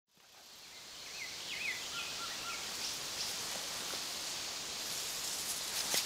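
Outdoor ambience by a forest stream fading in from silence: a steady high hiss of rustling and flowing water, with a small bird giving a few short warbling chirps about a second and a half in.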